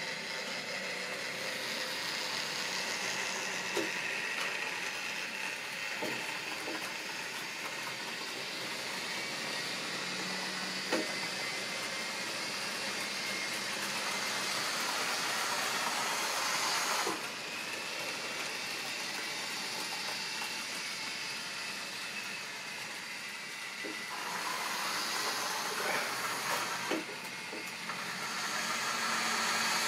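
Model railway trains running on the layout: a steady whir of small electric motors and wheels on track, with a few sharp clicks. It grows louder as a train of tank wagons passes close by, drops off suddenly, and builds again near the end as a model diesel locomotive approaches.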